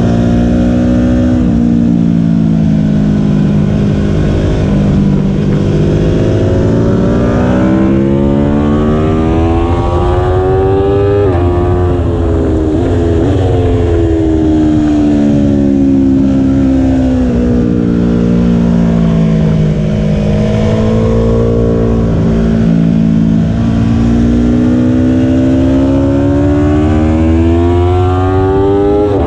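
2017 Aprilia Tuono V4 1100 RR's V4 engine through a Graves exhaust, heard onboard at track speed: the revs climb slowly and fall away again several times as it drives through corners. Around eleven to thirteen seconds in the pitch jumps quickly up and down several times as it shifts down a gear.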